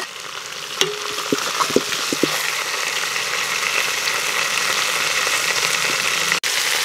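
Duck pieces and marinade sizzling in a hot steel pot over a wood fire, a steady hiss that slowly grows louder. A few light clinks of a spatula against the pot come in the first two seconds.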